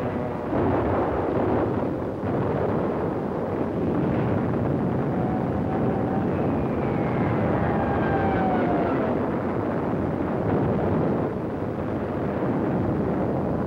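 Air-raid battle sound effects on an old film soundtrack: a continuous dense rumble of explosions and gunfire, with a whistle falling in pitch from about six to nine seconds in.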